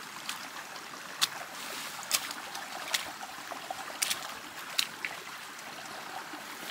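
Shallow water trickling along a waterlogged mountain trail, with about five sharp footsteps in the wet ground and water, roughly one a second, as a hiker walks up it.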